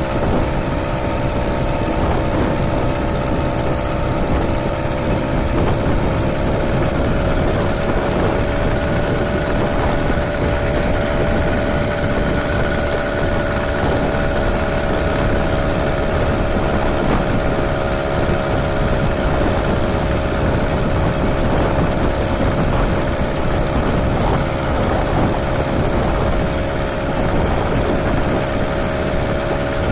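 Motorized bicycle's small engine running steadily under way. Its pitch rises slightly about a third of the way in and then settles, over a steady rushing noise.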